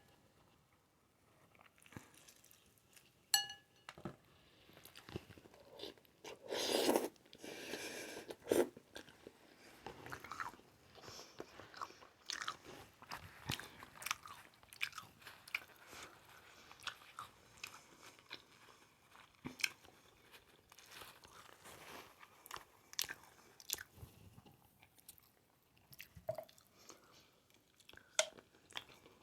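Close-miked eating of a seafood boil: chewing and crunching with many small clicks and smacks of mouth and food, and one louder, longer burst of noise about seven seconds in.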